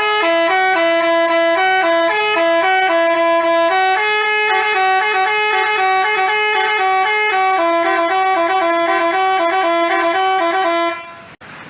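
Basuri telolet bus horn playing a tune of quick, stepped notes, cutting off about eleven seconds in.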